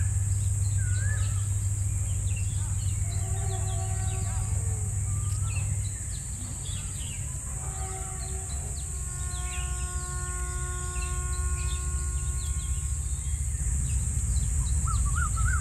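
Outdoor ambience with birds chirping and calling, over a steady high hiss and a low rumble that drops about six seconds in. A faint held tone sounds twice in the middle.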